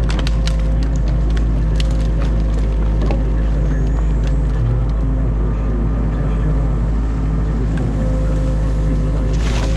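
Excavator diesel engine running steadily, heard from inside the cab, as the bucket breaks branches out of a beaver dam: many sharp cracks and snaps of wood during the first few seconds, and a short rush of noise near the end.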